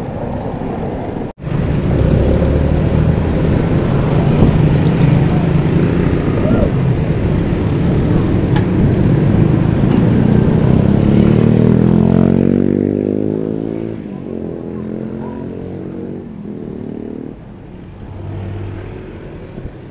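Road traffic heard from a moving bicycle: cars and motorcycles passing close by on a busy city road. The sound cuts out for an instant about a second in, then a loud rush runs until about twelve seconds, after which it settles to a quieter, steady engine hum.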